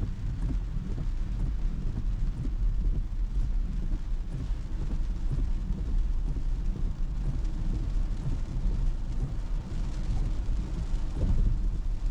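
Steady low rumble of a Tesla's tyres on wet pavement while driving in the rain.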